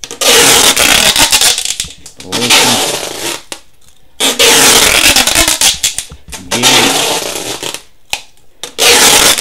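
Clear packing tape being pulled off the roll in long, loud screeching strips, about five pulls with short pauses between, as it is wound round and round.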